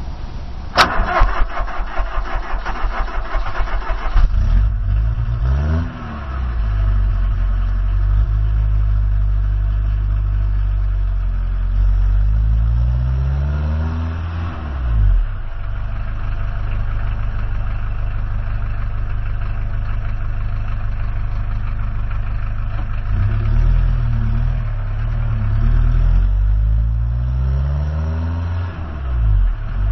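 Car engine heard from inside the cabin while driving, its pitch rising and dropping back several times as the engine speed changes. For the first few seconds a fast, loud rattle sits over it.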